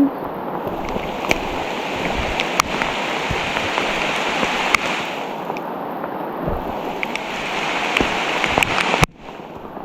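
Steady rain falling, with scattered sharp ticks of drops striking close by; the sound drops off suddenly about nine seconds in.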